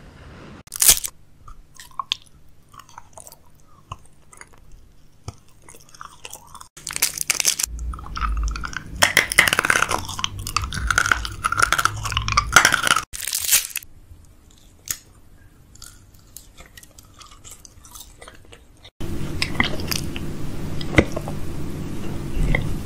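Close-miked ASMR eating: crunching bites and chewing of food, with sharp crisp clicks. A steady low hum comes in near the end.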